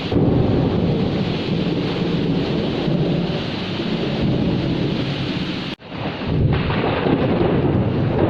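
Heavy rain with a continuous low rumble of thunder. The sound cuts out for an instant just before six seconds in, then comes straight back.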